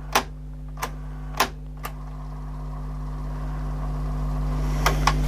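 Kenwood XD-351 mini hi-fi playing a cassette on its working deck B: a steady mains hum with tape hiss that grows steadily louder, and a few sharp clicks, two near the end. Deck B plays, unlike deck A, whose drive belt has come off.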